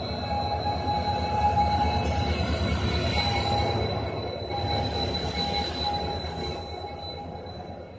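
Indian Railways WDP4D EMD diesel locomotives passing, their two-stroke V16 engines' rumble loudest about a second and a half in and fading toward the end, with steady high-pitched whines on top.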